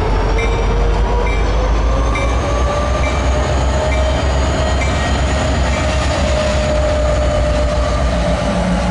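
Several CSX diesel locomotives running past close by: a steady low engine rumble with a slowly rising whine, and light regular clicks about once a second in the first half.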